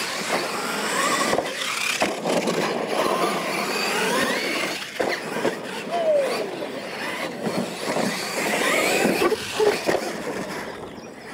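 Losi LMT radio-controlled monster trucks racing on dirt, their brushless electric motors whining up and down in pitch. The tyres scrabble on the dirt, with several sharp knocks as the trucks hit ramps and land.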